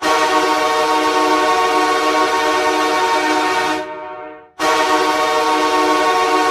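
Hockey goal horn: a loud, steady air-horn blast that fades away about four seconds in, then a second blast that starts abruptly half a second later and holds.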